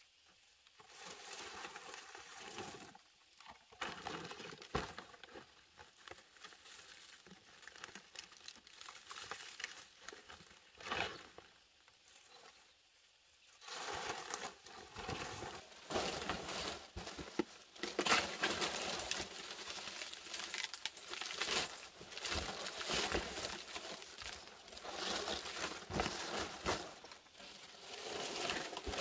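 Fan palm leaves rustling and crackling as they are handled and laid onto a bamboo roof frame for thatching, with a few light knocks. The rustling grows busier and louder about halfway through.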